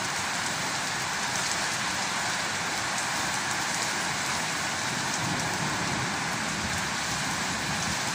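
Heavy downpour falling steadily on wet brick paving and garden shrubs, an even, continuous hiss of rain with little wind.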